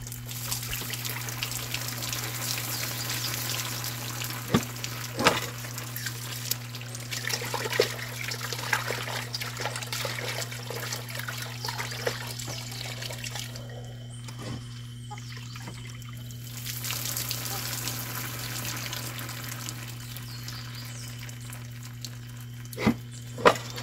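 Tap water running into a stainless steel bowl and splashing as oxtail pieces are rinsed by hand to wash off lemon. The water stops for a few seconds about midway, then runs again. Sharp knocks of the metal bowl come a few times, the loudest two near the end.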